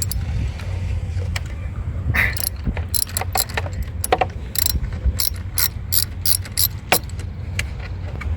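Socket ratchet clicking in short runs as a fastener is worked loose during a car battery removal, over a steady low rumble.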